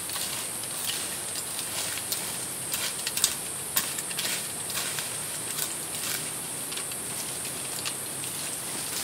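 Irregular chops and scrapes of a short-handled bladed tool hacking at soil and ferns, over a steady high insect drone from the forest.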